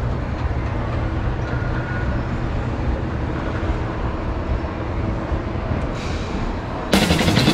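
Moving escalator running, heard from on board: a steady mechanical rumble with no distinct beats or tones. Background music cuts back in just before the end.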